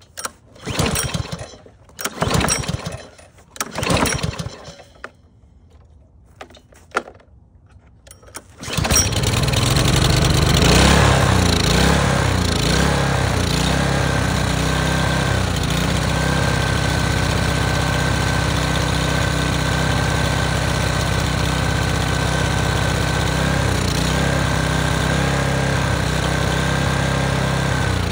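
Small single-cylinder pressure-washer engine on a walk-behind mower, started warm without choke while running on carburetor cleaner alone: several short cranking pulls, then it catches about nine seconds in, revs up briefly and settles into a steady run.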